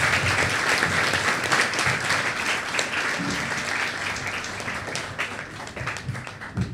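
A hall full of schoolchildren applauding, the clapping loudest at first and gradually dying away.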